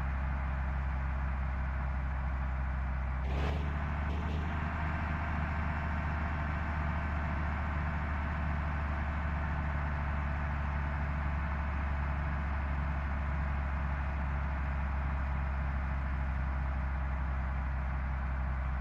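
Tour bus under way, its engine and road noise making a steady low drone. Two brief sharp sounds come about three and a half seconds in and again about a second later.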